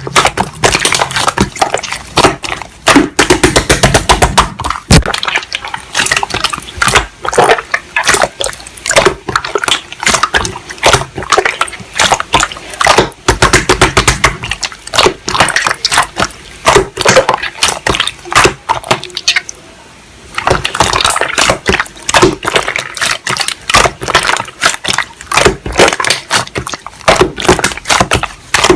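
Slime being squeezed and kneaded by hand, giving rapid, irregular wet clicks and pops, with a brief pause about two-thirds of the way through.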